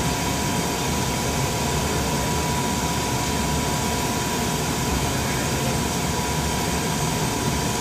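Steady hum and rush of running machinery in a jet cockpit, with a thin steady high tone over it.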